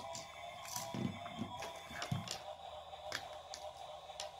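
A few scattered light clicks and soft knocks of small toy cars and plastic toy pieces being handled and set down on a table.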